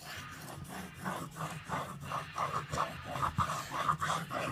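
Large knife blade stroked back and forth on a wet King whetstone: a rhythmic scraping rasp of about four strokes a second that gets louder about a second in.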